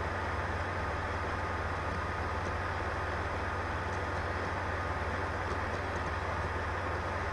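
A steady low hum with a hiss, unchanging in level, with a few faint ticks.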